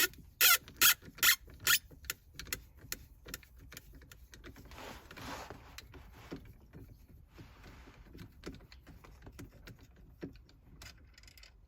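A T8 Torx screwdriver backing out a small screw in plastic trim: sharp regular clicks, about two and a half a second, for the first two seconds. Then fainter small ticks and scraping as the screw is worked loose and lifted out.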